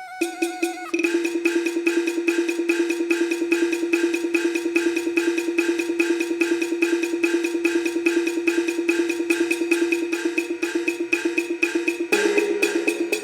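Traditional ensemble music: a fast, even wood block beat, about five or six strikes a second, over a long held instrumental note. A lower second note joins near the end.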